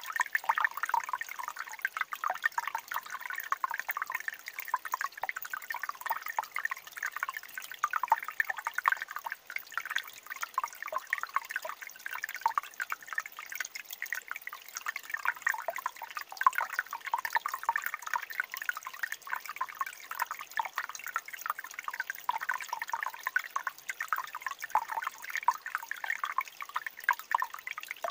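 Shallow mountain stream trickling over stones and gravel: a steady run of small gurgles and drips.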